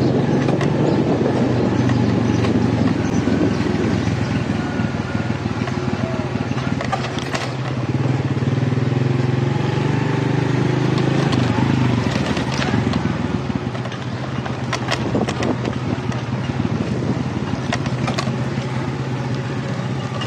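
Motorcycle engine running steadily while it is ridden over a rough, unpaved construction road, with scattered knocks and rattles from the bumps.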